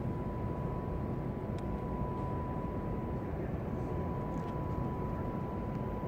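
Steady low rumble of outdoor background noise, with a thin, constant high tone over it.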